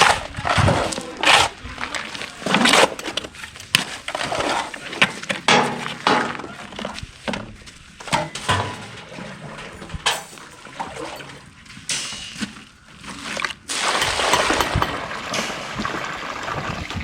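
Shovels scraping and slapping through wet concrete being mixed by hand from cement and sand, in irregular strokes about once or twice a second.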